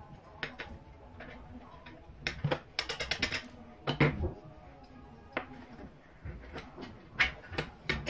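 Small metal gun parts and tools clicking and tapping as an AR-15 charging handle latch, its spring and a nail used as a pin are worked by hand. There are scattered light clicks, a quick rattle of clicks a little under three seconds in, and sharper single taps around four and seven seconds.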